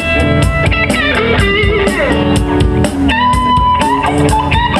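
Live rock band playing an instrumental passage: an electric guitar lead with held and bent notes over bass guitar and a steady drum kit beat.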